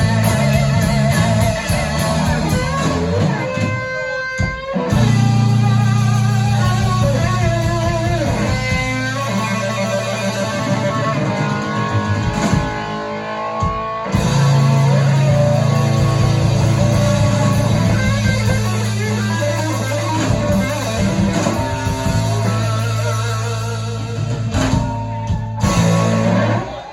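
Live blues-rock band playing, with electric guitar leads bending and wavering over long held bass notes. The band stops together near the end, closing the song.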